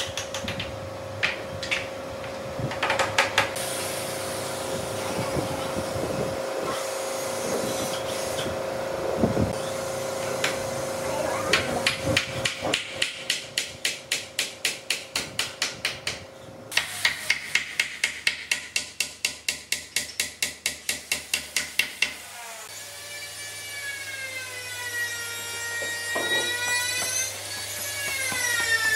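Hand tool work on wood: scattered knocks, then long runs of even strokes about three a second, over a steady hum that stops partway through. Near the end a pitched whine rises and falls in pitch.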